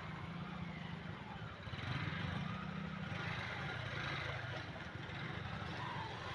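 Motorcycle and scooter engines running as riders come along the track, a steady low engine sound with no single event standing out.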